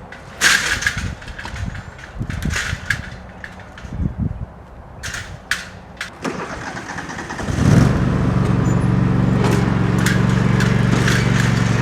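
Scattered knocks and clatter, then about eight seconds in a small engine starts with a loud burst and runs steadily.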